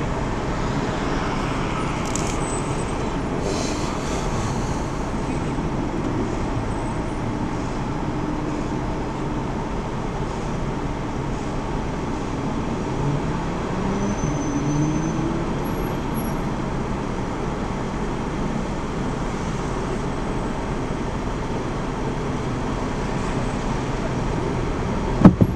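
Steady road traffic noise from vehicles crossing an intersection, with one engine note rising about halfway through as a vehicle accelerates. A single sharp knock near the end is the loudest sound.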